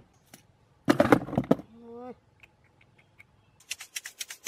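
Cardboard box being handled: a loud scraping rustle about a second in, a brief pitched hum, then a fast run of scratching strokes on the cardboard near the end.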